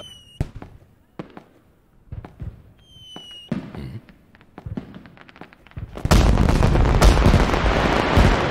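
Fireworks: two short whistles and scattered sharp pops in the first few seconds, then, about six seconds in, a loud, dense barrage of bangs and crackling.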